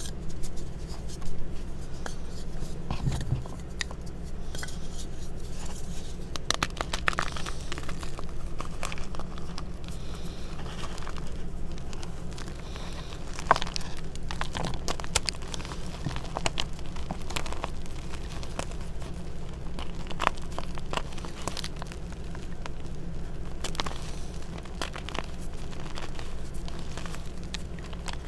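Hands crushing and crumbling reformed gym chalk blocks in a bowl of chalk powder: continuous irregular crunching and crackling, with a few sharper cracks as pieces break.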